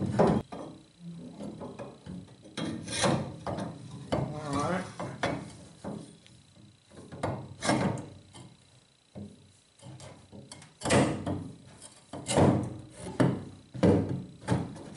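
Metal exhaust pipe sections knocking and scraping against the inside of a steel blast cabinet as they are fitted into place: a run of irregular clunks and rubs.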